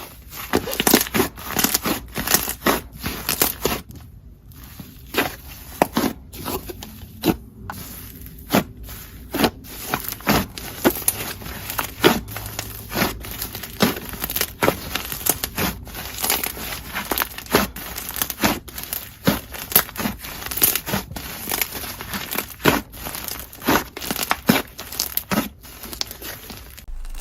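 Slime being squished, poked and stretched by hand, giving an irregular run of crackling, popping clicks, with a quieter patch about four to eight seconds in.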